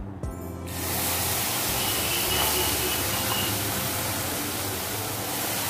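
Milk hissing steadily as it is poured into a hot pan of freshly roasted semolina; the hiss starts under a second in.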